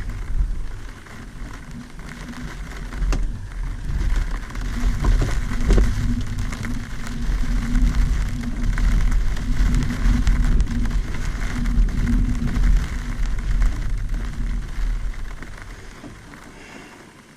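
Rumbling and rattling inside an LS4 glider's cockpit, with a few sharp clicks, dying away near the end.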